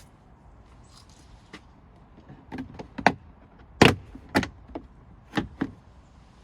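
A run of about seven sharp clicks and knocks, irregularly spaced, the loudest about four seconds in.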